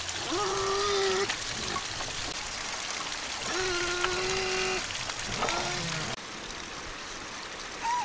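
Small stream and waterfall trickling steadily, with three drawn-out, even-pitched voice-like calls of about a second each, one near the start, one around the middle and a shorter one just after.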